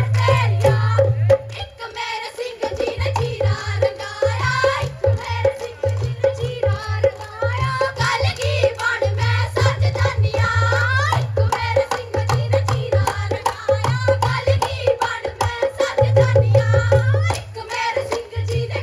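Punjabi giddha folk music: women singing folk verses over a steady hand-drum beat, amplified through stage speakers. The drum drops out briefly about two seconds in, then comes back.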